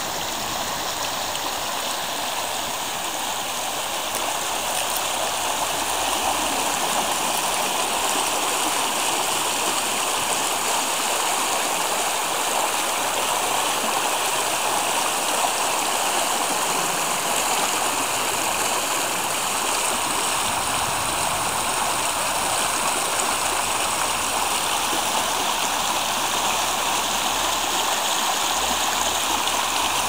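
Shallow stream running fast over stones and small rapids: a steady, unbroken rush of water.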